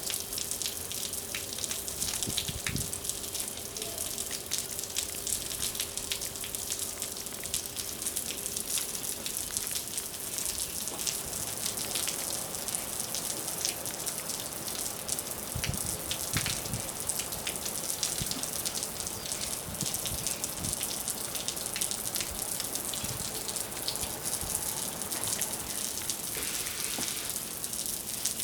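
Water spraying steadily, with many drops pattering and splashing. A faint steady hum can be heard under it until about ten seconds in.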